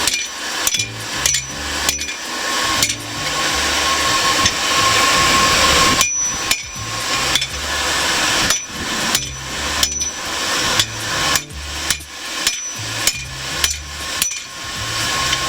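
Hammer blows on a hot 5 mm mild-steel plate on an anvil, an irregular run of sharp strikes about two a second with a short metallic ring after many of them. A steady hiss of the forge's air blower runs underneath.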